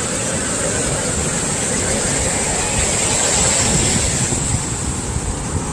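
Heavy swell surf washing up the beach, the rush building to a peak about three to four seconds in and then easing, with wind buffeting the microphone.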